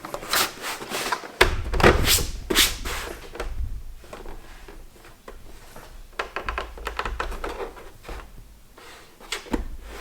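Handling noise of hard objects: a quick run of sharp clicks and knocks over the first three seconds, with a heavier thud about a second and a half in, then scattered lighter clicks and knocks.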